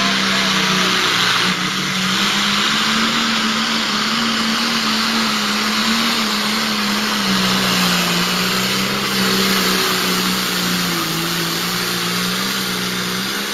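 Diesel engine of a John Deere pro stock pulling tractor at full throttle under load as it drags the weight-transfer sled, a steady loud drone whose pitch sags a little past the middle and climbs again near the end.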